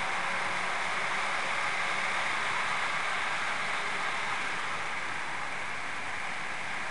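Steady whirring rush of a model train running on the layout's track, easing off a little about four seconds in.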